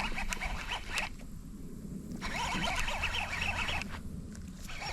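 Fishing reel being cranked in stop-start spells while a hooked bass is fought, a rapid rasping ratchet that pauses for about a second between spells.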